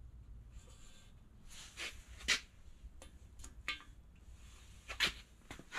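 Faint scattered clicks and light taps of a digital caliper's depth base being set against a piston ring and the cylinder deck of an aluminium engine block, pushing the ring to a set depth in the bore. The taps are sparse, about four of them, over a low background hum.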